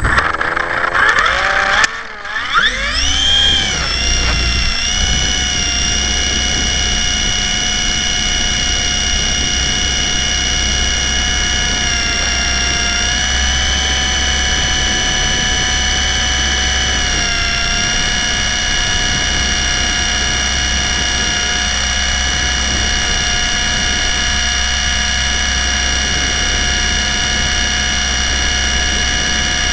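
Blade 120 SR micro RC helicopter's electric motors and rotor, picked up by a camera mounted on it: a few knocks, then a rising, wavering whine as the rotor spools up over the first few seconds, settling into a steady high whine that shifts slightly in pitch twice.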